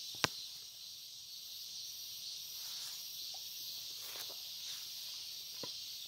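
A steady, high insect chorus, with a sharp click just after the start and a few soft footsteps and rustles in long grass.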